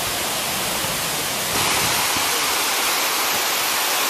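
Steady rushing of a tall waterfall plunging onto rocks and into its pool, an even hiss with no pauses. It steps up in loudness about one and a half seconds in.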